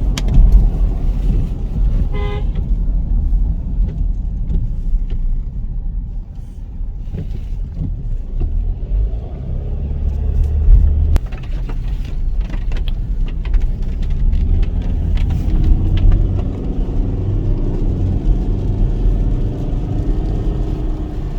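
Car driving on a rough road, heard from inside: a steady low rumble of engine and tyres, with a short horn toot about two seconds in and scattered light knocks in the middle.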